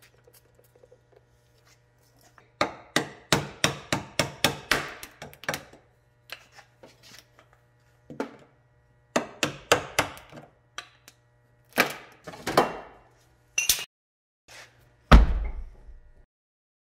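Sharp metal taps on a car's sheet-metal quarter panel in quick runs of about three a second, tapping down the high spots around a glue-pulled dent while a strap holds the pull. Near the end comes one heavier, deeper thump.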